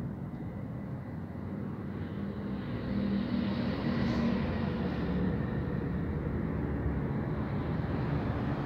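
Street traffic noise with a motor vehicle passing close by, swelling about three to four seconds in.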